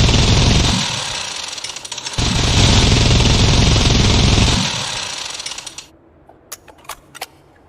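Minigun firing two long bursts of very rapid fire, each trailing off as it winds down, followed by a few sharp clicks near the end.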